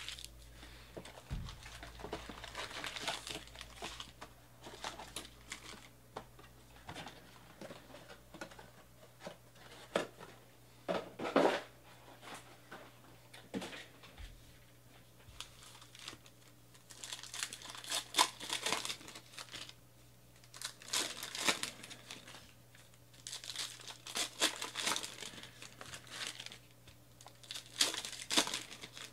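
Plastic wrapping on trading-card boxes and packs crinkling and tearing in irregular bursts as the sealed boxes and foil card packs are opened by hand.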